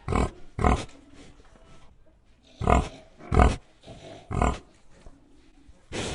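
Pig grunting: six short grunts, the first ones coming in quick pairs, with short pauses between them.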